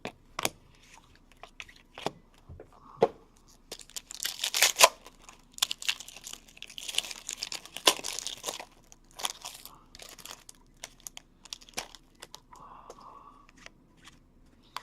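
A pack of hockey trading cards being opened and handled: the wrapper tears and crinkles in two longer rustling spells, with scattered sharp clicks and taps from the cards.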